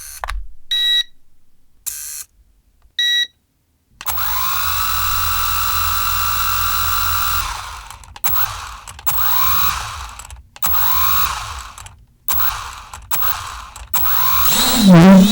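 A few short clicks and beeps, then a small electric motor spins up with a rising whine and runs steadily for a few seconds. It is then revved up and down several times in short runs, and gets louder near the end.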